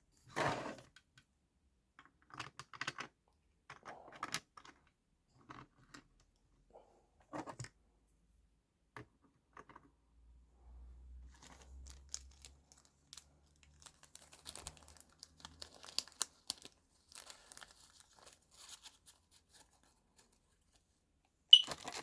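Small plastic model-railway parts being handled and fitted together: scattered light clicks and rustles, with one sharp louder click near the end.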